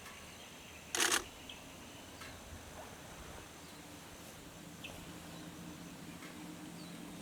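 A single sharp clack about a second in, over faint outdoor background with a few faint high chirps. A low steady hum comes in about halfway.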